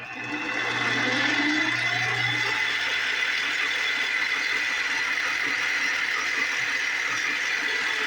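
Grizzly mini lathe starting up and spinning its newly fitted 6-inch chuck: the pitch climbs during the first two seconds as it spins up, then it runs steadily at high speed with a steady high whine, around 2500 RPM.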